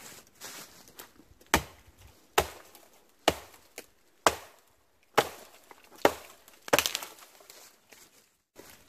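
Hatchet chopping into the base of a small pine trunk: about seven sharp wooden blows, a little under a second apart, with a quick run of cracks after the last of them.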